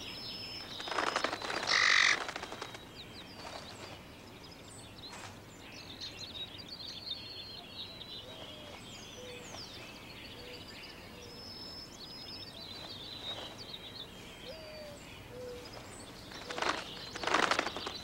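Outdoor bird chorus: many small songbirds giving short high chirps and slurred whistled notes, with a few fainter low notes. Two louder, harsher sounds come about a second in and again near the end.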